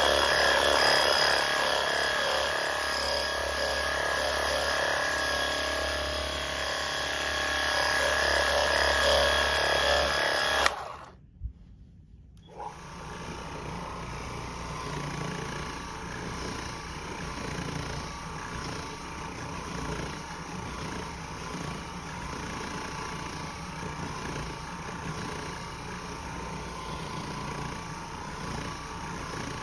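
A louder steady sound with several held tones breaks off abruptly about a third of the way in. After a second of near quiet, an Oreck XL Pro orbital floor machine runs steadily, its pad scrubbing carpet for very-low-moisture cleaning.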